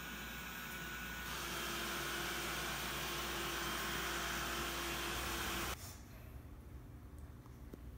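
Roborock E25 robot vacuum running: a steady hiss with a hum. It cuts off abruptly about six seconds in, leaving faint room tone.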